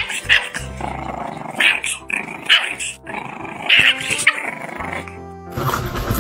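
Small puppy yapping, about six sharp yaps over the first five seconds, with rougher growl-like sounds between them.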